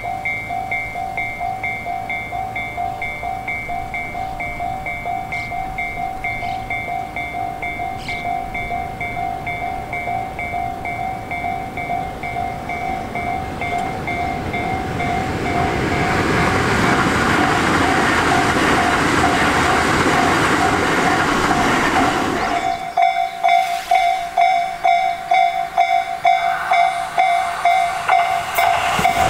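Tobu Railway electric train approaching and passing, its running noise swelling about halfway through and cutting off abruptly a few seconds before the end. A steady pulsing high chirp runs throughout, louder after the cut.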